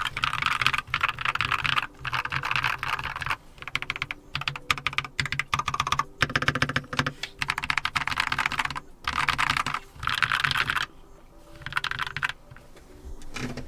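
Typing on a Keychron K2 QMK mechanical keyboard with brown tactile Keychron Super Switches: fast clattering keystrokes in several bursts, dying down about eleven seconds in.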